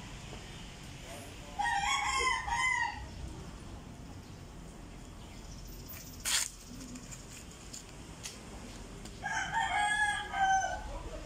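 A rooster crowing twice, two long pitched crows about seven seconds apart. A single sharp click or knock comes between them.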